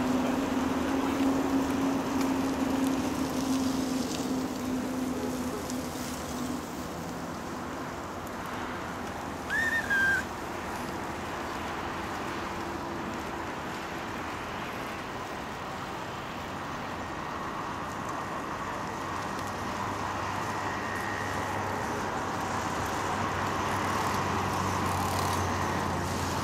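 Steady road traffic noise, with a low steady hum for the first six seconds or so and a low rumble swelling slightly near the end. A short high chirp sounds once, about ten seconds in.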